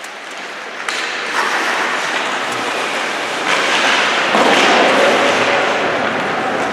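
Ice hockey rink noise during play: a sharp thud about a second in, then a wash of noise that grows louder in two steps.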